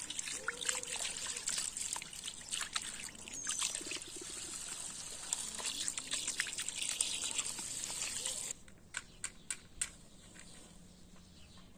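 Water from a garden hose running into a pot of rice and splashing as a hand swirls the grains to wash them. About two-thirds of the way through it cuts off suddenly, and a few light knocks follow.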